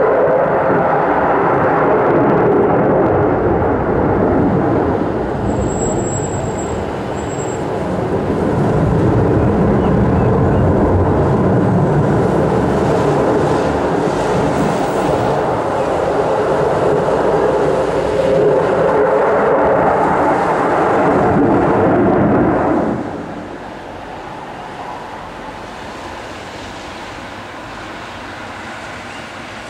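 Dassault Rafale's twin jet engines running loud as the fighter passes overhead. The sound dips briefly about a quarter of the way in, then drops sharply to a quieter, distant rush about three-quarters of the way through.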